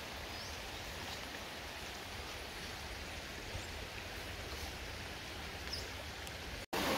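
Steady rush of a stream flowing, with a few faint high chirps over it. The sound drops out for a moment near the end.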